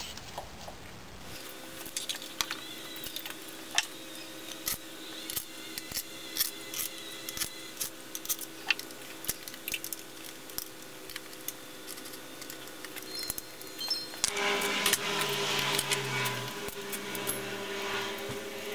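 Metal hand tools and engine parts clinking and clattering, sharp clicks a few times a second, while parts are fitted by hand to a bare V6 engine. A steady hum runs underneath and shifts near the end.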